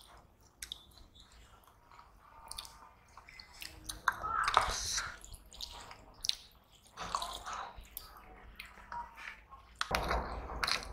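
Close-miked eating sounds: chewing and mouth clicks, with wet squishing of rice being mixed with curry by hand on steel plates. They come in short bursts and scattered clicks.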